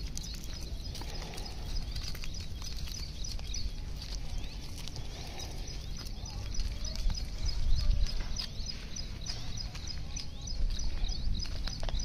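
Outdoor ambience: quick, high chirps repeating several times a second, over a low, uneven rumble of wind on the microphone, with a few light knocks.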